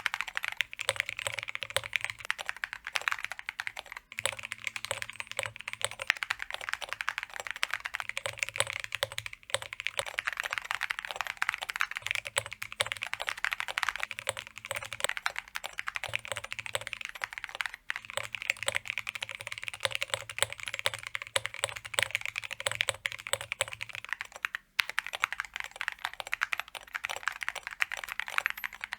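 Fast, continuous typing on a custom mechanical keyboard with aluminum keycaps, a dense run of clacking keystrokes broken only by a few brief pauses.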